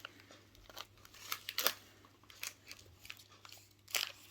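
Toy packaging being handled and opened: scattered sharp clicks, snips and crinkles of plastic and card, the loudest snap near the end.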